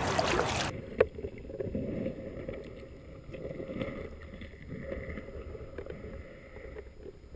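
Water splashing in a shallow creek, then, under a second in, the sound turns abruptly dull as the microphone goes underwater: a muffled low rumble of moving water with a sharp click just after and occasional faint ticks.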